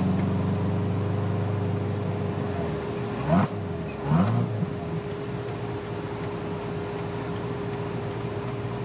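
Supercharged V8 of a Corvette C7 Z06 pulling away under light throttle, heard from the open-top cabin. Its note eases off about three seconds in, around a gear change. Two short, sharp sounds follow close together, then the engine runs on quietly at low revs.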